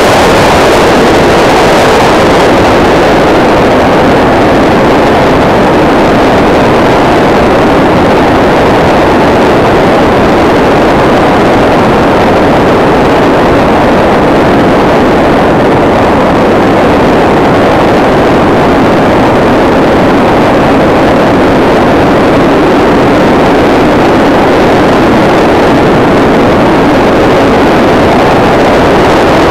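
Loud, steady rush of airflow buffeting the onboard camera's microphone as the SkyCruise 2400 RC glider flies fast and low.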